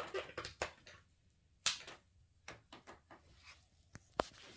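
Scattered clicks and knocks of a power cord and plug being handled at a power strip, with a sharp click near the end.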